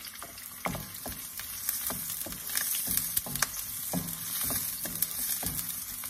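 Chopped onion and garlic sizzling in oil in a nonstick wok over low heat, with a wooden spoon scraping and knocking against the pan as it stirs them.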